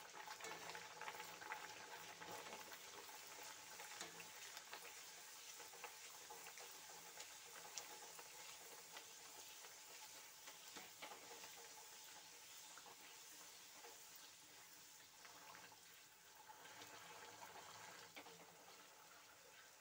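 Faint, steady sizzling and crackling of hot oil as a dal-stuffed radhaballavi puri deep-fries in a kadai, with scattered small ticks.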